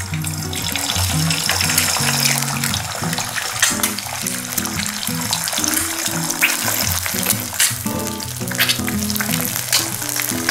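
Eggs frying in hot oil in a nonstick pan: a steady sizzle with many small popping crackles, over background music.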